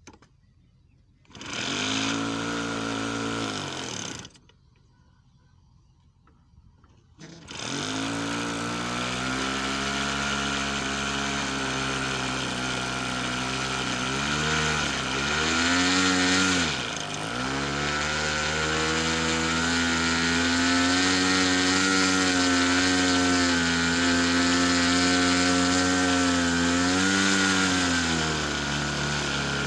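Radio-controlled model airplane's small glow-fuel engine, cranked with a handheld electric starter in a short burst that stops, then about seven seconds in starting and running steadily, its pitch dipping briefly a few times.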